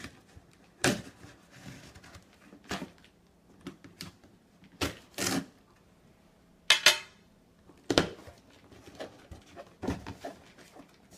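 Cardboard box being cut and opened by hand: irregular short scrapes and taps as a blade runs along the packing tape and the cardboard is handled, with a longer rasping scrape about two-thirds of the way through.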